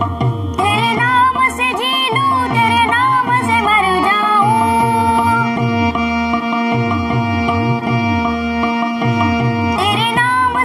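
A boy singing an Indian classical-style vocal line while playing melody on a small electronic keyboard, over a steady tabla rhythm. The voice drops out for a few seconds in the middle while a keyboard note is held, then comes back near the end.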